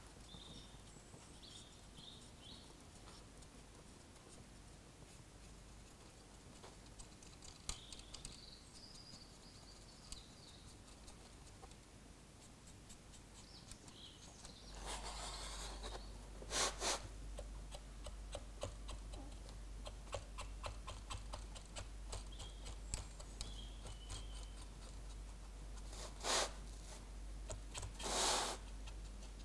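Faint, quick scratching and ticking of a cotton bud rubbed lightly over a model locomotive's painted plastic body as wet oil paint is lifted off, with a few louder brief scuffs in the second half.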